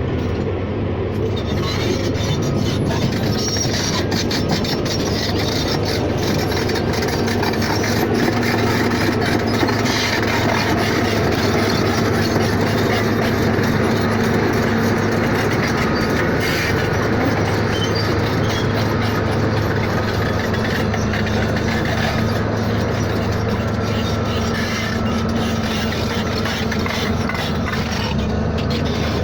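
Steady, loud rumbling noise of a moving vehicle, with a constant low hum underneath.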